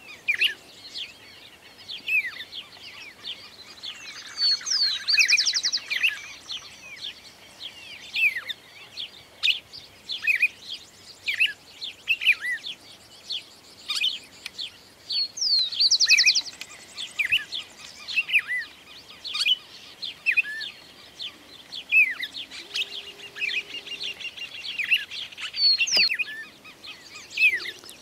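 Small songbirds chirping: a steady run of short, sharp chirps, with a buzzy trill about five seconds in and again around fifteen seconds.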